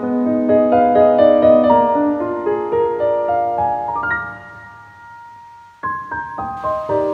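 Background piano music: a gentle run of notes that fades out about four and a half seconds in, then new notes start a second or so later.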